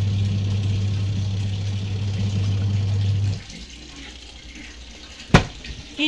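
Avon manual washing machine running with a steady motor hum and water churning inside the drum, then the motor cuts off abruptly about three seconds in. A single sharp click follows near the end.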